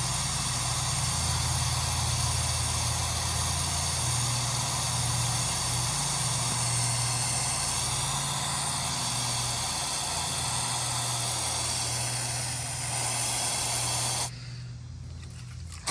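Aerosol can of insect spray sprayed in one long continuous hiss, held down until it cuts off about two seconds before the end.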